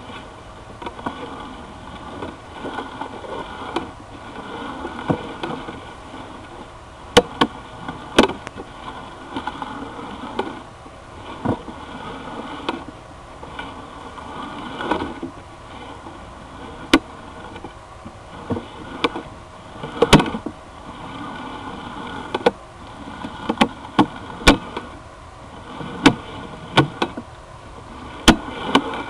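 Sewer inspection camera being fed along a drain pipe: a steady hum with a faint whine, broken by irregular sharp knocks and scrapes as the camera head and push cable strike the pipe walls and joints.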